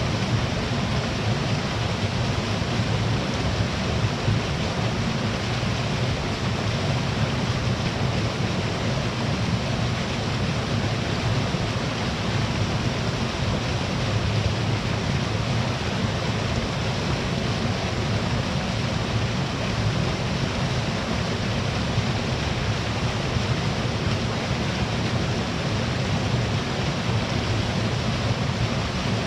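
Small waterfall and the stream below it rushing steadily, a continuous even roar that is strongest in the low end.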